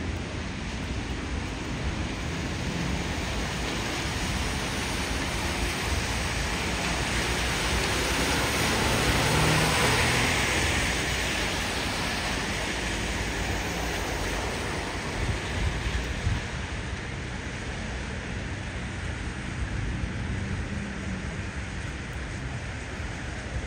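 Steady rushing noise, swelling to its loudest about ten seconds in and easing off after.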